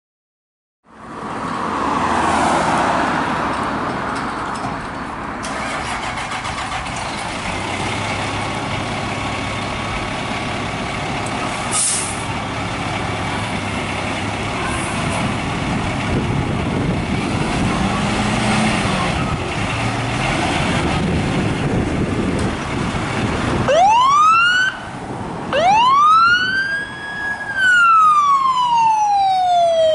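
Fire ladder truck's engine running steadily, then, near the end, its siren starts up, sweeping up and down in pitch in a wail as the truck pulls out to respond to a call.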